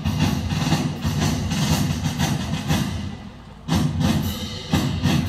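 Live orchestra playing music with a steady, pounding drum beat. It drops away for a moment about three seconds in, then comes back in full.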